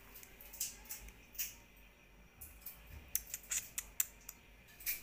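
Footsteps on a hard tiled floor: a series of irregular short clicks and scuffs, with a cluster of sharper ticks about three to four seconds in.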